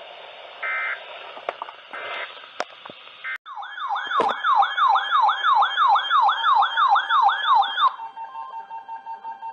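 Weather radio static hiss with short buzzy digital data bursts, the EAS end-of-message code. A few seconds in it switches suddenly to a loud electronic siren-like alert tone, warbling up and down about three times a second for some four seconds. A steadier pulsing alert tone follows.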